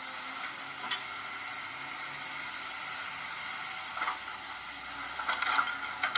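Excavator loading soil into a diesel dump truck, heard as a steady, thin hissing machine noise with a few brief knocks about a second in and again near the end.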